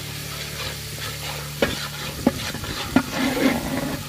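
Metal ladle stirring tomatoes into masala frying in oil in a large metal pot, with a steady sizzle. The ladle knocks sharply against the pot three times in the middle, about two-thirds of a second apart.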